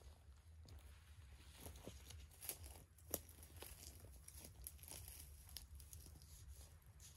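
Faint rustling of hammock fabric and its tie rope being handled as the end is wrapped and tied around a tree trunk, with scattered small clicks and scrapes.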